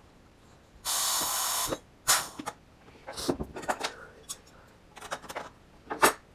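Pneumatic rivet squeezer cycling: a steady hiss of compressed air lasting nearly a second, followed by several sharp clicks and knocks of metal.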